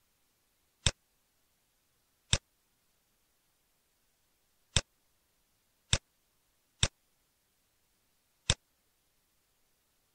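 Computer mouse button clicking six times at uneven intervals, each a short, sharp click.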